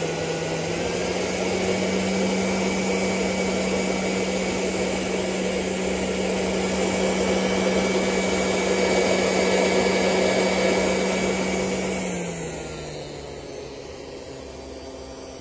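Thermal fogger's pulse-jet engine running with a steady drone and hiss as it blows treatment fog into a beehive entrance against varroa mites. Its pitch steps up slightly about a second in, then sinks and fades about twelve seconds in, leaving a quieter steady hiss.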